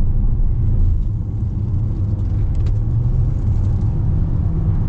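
Steady low road and engine rumble heard inside the cabin of a Volkswagen Tiguan 1.5 TSI on the move.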